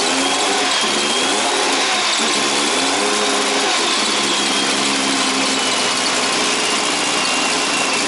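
Nissan RB25DET turbocharged straight-six running, its engine speed rising and falling a few times. It still has the misfire the owner is chasing, and it is not yet at operating temperature.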